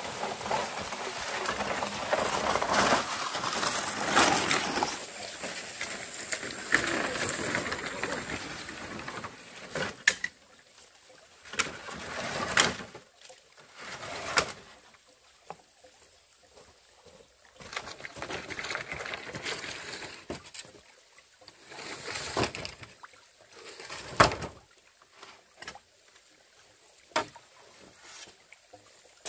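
Bundle of green bamboo poles dragged over stones and gravel, a long rough scraping rattle. After about ten seconds it gives way to separate knocks and short clatters as the poles are shifted and set down.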